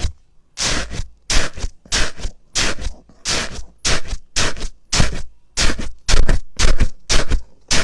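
Slime being worked by hand: a rapid series of short, sharp rasping squishes, about two a second.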